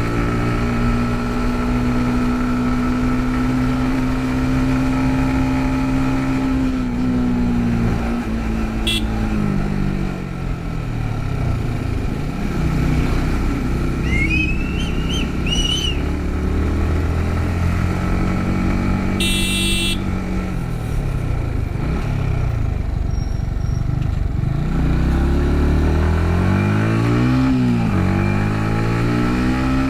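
Yamaha MT-15's single-cylinder engine running on the move: it holds a steady speed, eases off and slows, picks up again, and near the end revs up and down several times through gear changes. A short high-pitched tone sounds once, about two-thirds of the way through.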